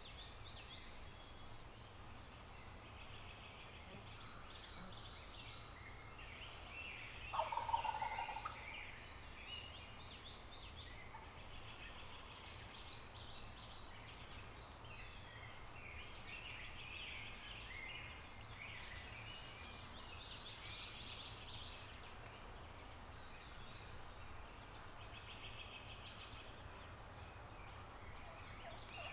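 A wild turkey gobbler gobbles once, about seven seconds in; this is the loudest sound. Fainter, higher bird calls repeat throughout.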